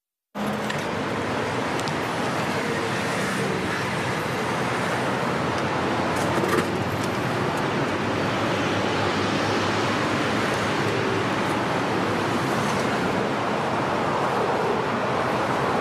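Steady rushing noise, like traffic, rain or static, starting abruptly after a brief silence and holding at an even level, with a small click about six and a half seconds in.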